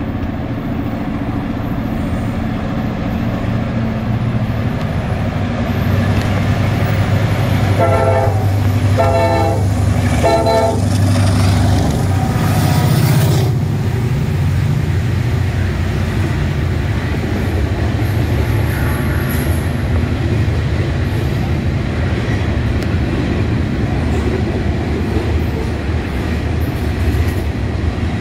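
Norfolk Southern freight train's diesel locomotive approaching and passing beneath, its engine rumble loudest about thirteen seconds in. About eight seconds in the locomotive horn sounds three short blasts, and the freight cars then roll by with a steady rumble.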